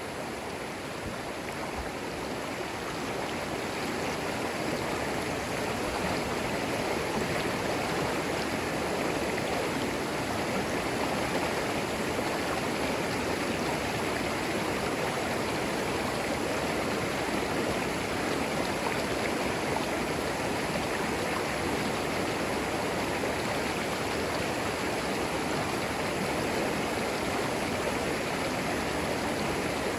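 A shallow creek flowing steadily over moss-covered stones, a continuous rushing and babbling of water.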